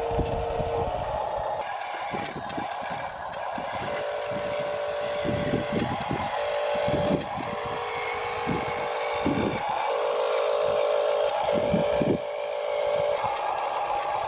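Small electric motors of radio-controlled models whining in short on-and-off runs, with scattered knocks and clatter between them.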